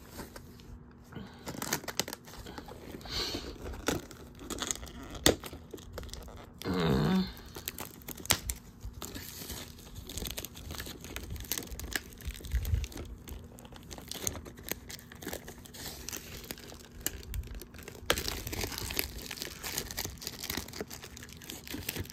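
Plastic shrink wrap being torn and peeled off a VHS tape case, crinkling and crackling, with scattered sharp clicks and snaps.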